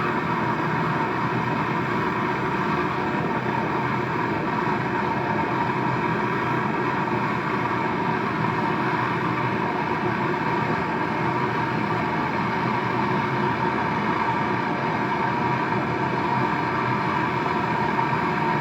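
Gas brazing torch flame burning with a steady hiss while refrigerator compressor copper pipes are brazed.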